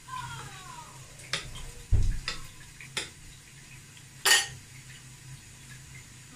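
Scattered knocks and clinks of a mixing bowl and kitchen utensils being handled, with a dull thump about two seconds in and a sharper, louder clatter a little after four seconds.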